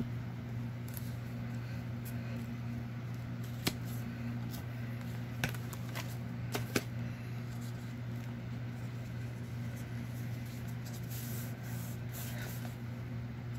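Paper pages being handled, lifted and smoothed flat by hand over a steady low hum, with a few sharp clicks between about four and seven seconds in.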